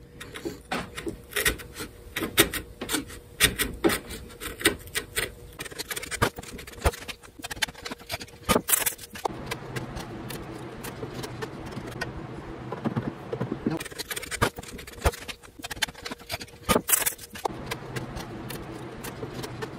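A hand chisel paring wood off an acoustic guitar's neck heel, a quick run of small scraping clicks. From about halfway, a strip of sandpaper is worked through the neck-to-body joint in scattered scraping strokes over a steady low hum. This is material being taken off the heel to set the neck angle during a neck reset.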